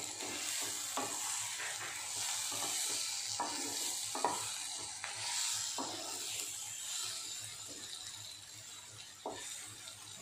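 Stuffed okra sizzling in hot oil in a nonstick kadai while a wooden spatula stirs and turns it, with a steady frying hiss and a scrape or knock of the spatula against the pan every second or two.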